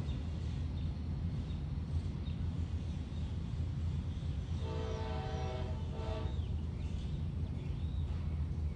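Distant locomotive air horn, the K5LA chord horn on an Amtrak P42DC, sounding a long blast about four and a half seconds in, followed by a short one. A steady low rumble runs underneath.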